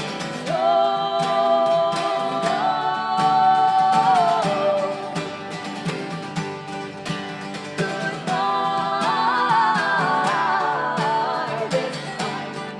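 Live acoustic song: wordless sung notes over strummed acoustic guitar, with no drums. One long held note comes about half a second in, and a wavering, sliding vocal line follows about eight seconds in.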